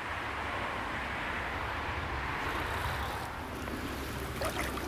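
A steady rushing noise, then from about three seconds in water splashing and sloshing as a large salmon is held in the shallows at the river's edge, with a short cluster of sharper splashes near the end.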